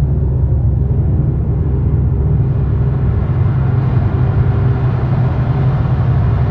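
Dark ambient noise drone: a dense, steady low rumble with faint held tones above it. A hissier upper layer swells in about two and a half seconds in.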